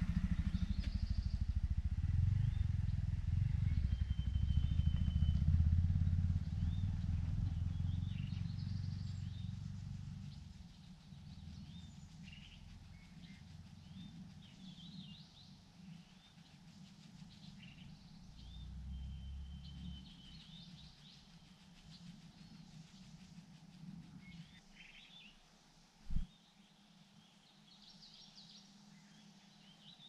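A low engine rumble, loud at first, fades away over the first ten seconds or so, while small birds give short chirps and whistles throughout. A single dull thump comes near the end.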